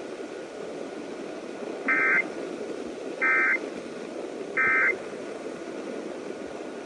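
Emergency Alert System end-of-message tones: three short, identical screeching digital data bursts (the 'NNNN' EOM code), about 1.3 seconds apart, marking the end of the alert. A steady broadcast hiss runs underneath.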